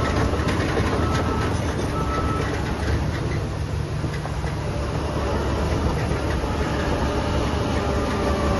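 Heavy diesel earthmoving machinery running steadily with metallic clanking, and a reversing beeper sounding twice in the first couple of seconds.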